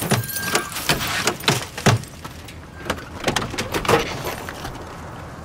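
A string of sharp clicks, knocks and rattles as a car's driver door is pulled open and someone reaches inside, with louder thumps near the start and about two seconds in.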